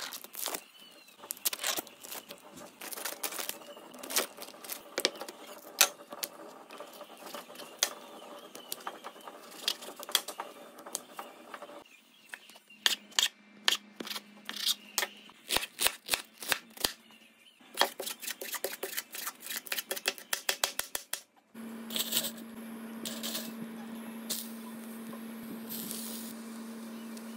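Kitchen prep sounds in a few cuts. First plastic wrapping crinkles and tears off a stick of Korean rice cake, then a chef's knife slices the rice cake in quick strokes on a wooden cutting board. From about three-quarters through there is a steady low hum with a few sharp clicks.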